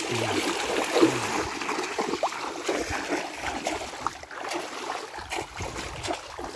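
Continuous water sloshing and splashing from a person wading through knee-deep floodwater and jabbing a multi-pronged fishing spear into it.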